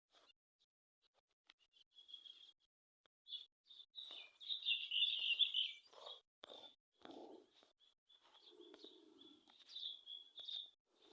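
Birds chirping in short, high notes, thickest and loudest about four to six seconds in, with a few lower sounds mixed in during the second half.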